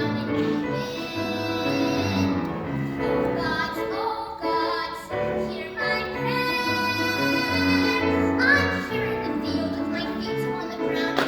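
A young female voice sings a musical-theatre song over instrumental accompaniment, holding one long note a little past the middle.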